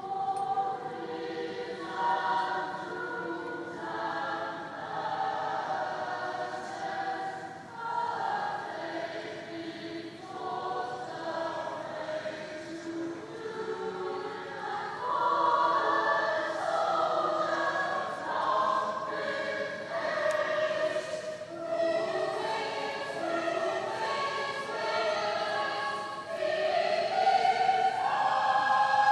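Large choir singing, coming in at the start and swelling louder about halfway through and again near the end.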